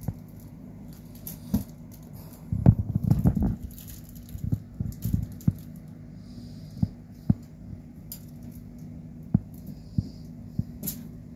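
Rubbing, taps and knocks of a phone being handled and turned around, a dense cluster about three seconds in and single taps after, over a low steady hum.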